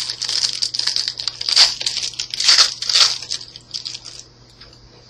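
Yu-Gi-Oh booster pack's foil wrapper crinkling and being torn open by hand, a dense crackle with a few louder rips in the middle that dies away after about four seconds.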